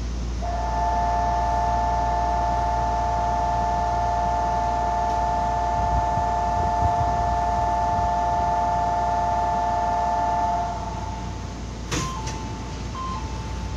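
Electronic station departure bell ringing as a steady two-note tone for about ten seconds, over the low hum of the stopped electric train. Near the end, a sharp click and a few short beeps at two pitches.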